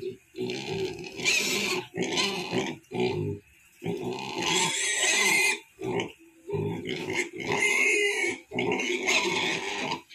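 Duroc × Large White pigs squealing and grunting in a run of loud bursts, each a second or so long, with short gaps between them.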